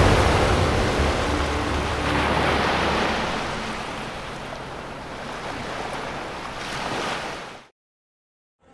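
Ocean surf washing onto the shore, a steady rush that swells and ebbs, then cuts off to silence about a second before the end.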